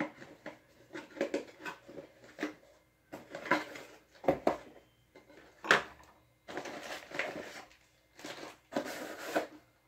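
Cardboard figure box being handled and opened by hand: irregular rustling and scraping of cardboard, with a few sharp knocks.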